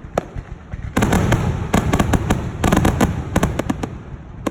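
Fireworks exploding: a few separate bangs, then from about a second in a dense run of bangs and crackling that thins out near the end.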